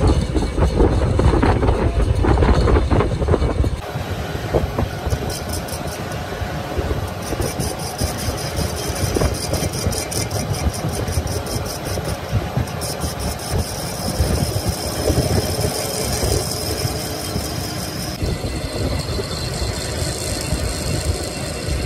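Metal lathe running, turning a steel axle shaft and its flanged end with a cutting tool. Steady machine noise that changes abruptly about four seconds in and again near the end, with a high hiss over it through the middle.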